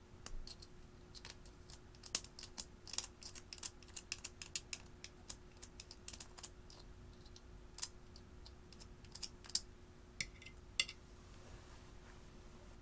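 Slime being handled and pressed, giving irregular small crisp clicks and pops, thick in the first half and sparse later.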